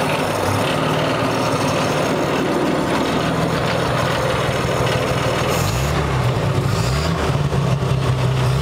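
1952 Dodge B3's flathead straight-six running a little rich on fuel poured into the carburetor bowl, freshly brought back to life after sitting for decades. About six seconds in it is revved up and then held at a higher speed.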